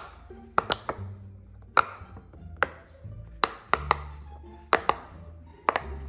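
Bubbles of a silicone Pop It fidget toy popping under fingertips: about ten sharp pops, several in quick pairs, over soft background music.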